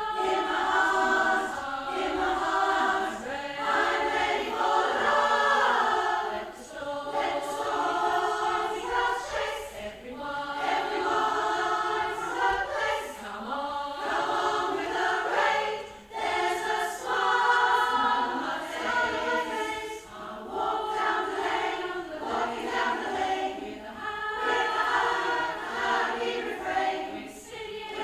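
Women's choir singing together in several parts, in sung phrases of a few seconds separated by brief dips.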